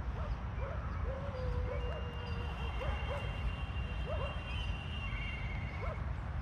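Outdoor garden ambience: a low rumble of wind on the microphone, with scattered short distant calls that rise and fall in pitch and one longer held call about a second in.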